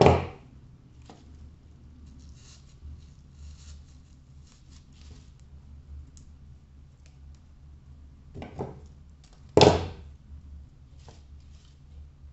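Florist's scissors snipping dried gypsophilia stems. There is a sharp snip at the start and two more about eight and a half and nine and a half seconds in, the last the loudest. Between them come faint rustles and small clicks of the dry stems being handled.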